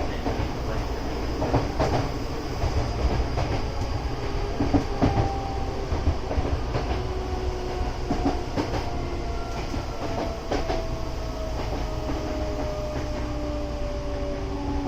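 Hankyu 8040 series train running, with rail rumble and scattered rail-joint clacks. About two-thirds of the way in, the whine of its Toshiba GTO-VVVF inverter starts to fall slowly in pitch, a sign that the train is slowing.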